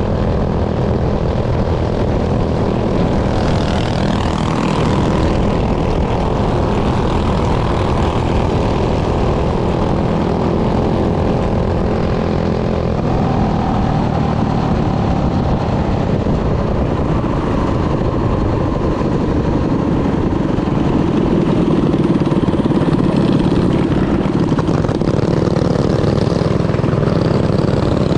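Minibike's small engine running steadily, with only slight changes in pitch.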